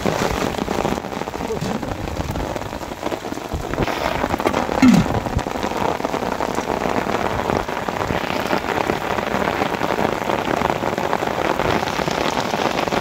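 Heavy rain falling steadily on flooded paddy-field water and rice plants, an even hiss throughout. A brief sound falling in pitch stands out about five seconds in.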